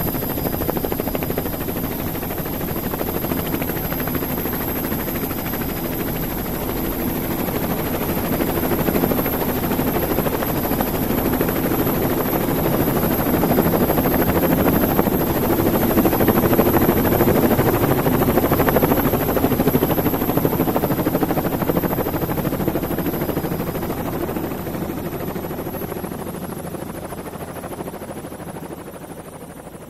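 Radio-controlled model helicopter's motor and rotor heard from its onboard camera: a steady drone with a thin high whine, growing louder through the middle. Near the end it fades and the high whine falls in pitch.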